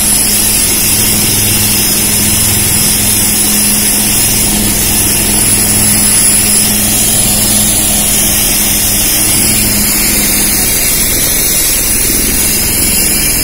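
Military helicopter running on the ground with its rotor turning: a loud, steady high turbine whine over a low, steady rotor and engine hum.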